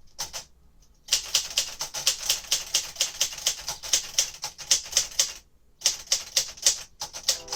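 1957 Royal Aristocrat manual typewriter being typed on in quick runs, typebars clacking against the platen about five or six strokes a second, with a short pause past the middle.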